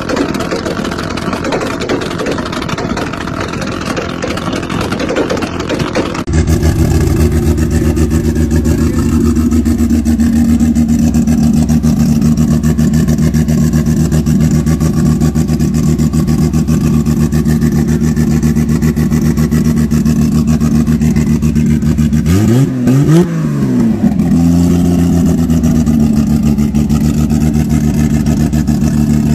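A Toyota MK4 Supra revving hard with a rough, hissy engine note, then, after a cut about six seconds in, a heavily modified MK4 Supra's big single-turbo inline-six idling steadily, with one quick rev that rises and falls about two-thirds of the way through.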